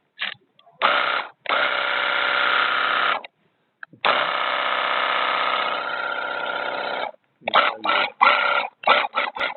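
48-volt cordless pressure washer's pump motor running as it sprays: a steady run of about a second and a half, a pause, then a longer run of about three seconds, followed by several short bursts near the end as the trigger is pulsed.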